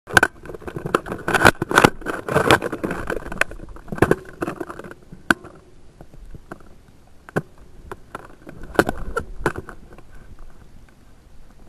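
Rustling and scraping handling noise, busiest in the first five seconds, with a string of sharp clicks and knocks scattered throughout.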